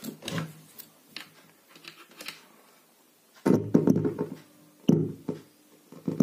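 Handling clicks and light knocks on an Intex woofer. Then, about three and a half seconds in, as it is switched on at the wall, a few loud, short, low thumps with a hum from the woofer as it powers up, a sign that the repaired power supply is working again.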